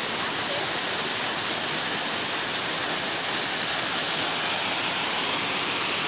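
Small waterfall cascading over rocks: a steady, even rush of falling water.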